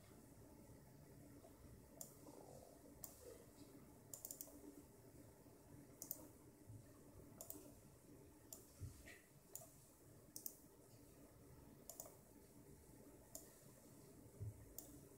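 Computer mouse buttons clicking: about ten separate clicks a second or so apart, with a quick double click about four seconds in, over a faint steady low hum.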